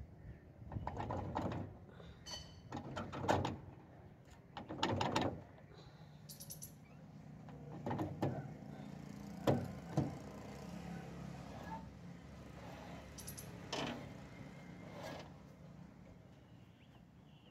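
Irregular short metal scrapes and clinks as nuts and a hand tool are worked on a rickshaw's wheel hub, with two sharper knocks about halfway through.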